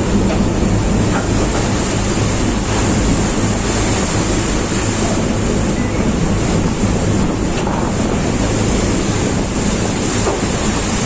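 Heavy storm seas breaking over and sluicing across a tugboat's low afterdeck, with strong wind buffeting the microphone. A steady low drone runs beneath the rush of water.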